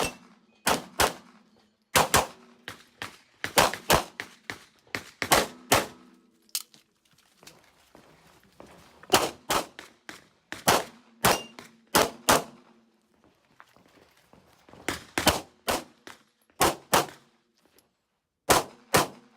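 Handgun shots fired in quick pairs during an IPSC stage, with steel targets ringing after some of the hits. There is a short break of about two seconds near the middle before the pairs resume.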